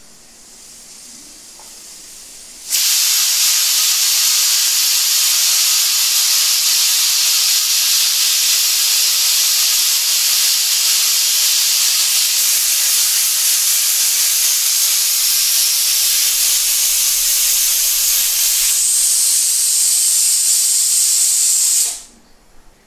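Pressure cooker full of vegetables letting off steam under pressure, its whistle. A faint hiss jumps about three seconds in to a loud, steady hiss of steam, which stops abruptly near the end.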